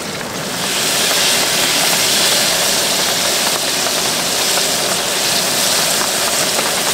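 Hot oil sizzling in a deep-frying pot as battered food goes in: a loud, steady hissing sizzle that swells up about half a second in and holds.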